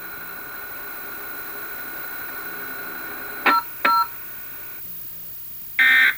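Emergency Alert System broadcast tones after the test message. A faint steady hum gives two short sharp clicks about three and a half seconds in. Near the end comes a loud, harsh buzzing burst of data, the first of the end-of-message bursts that close the alert.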